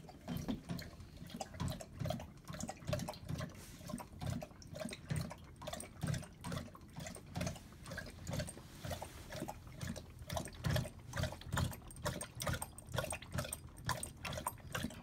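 Dog lapping water from a bowl, steady rhythmic laps at about three a second.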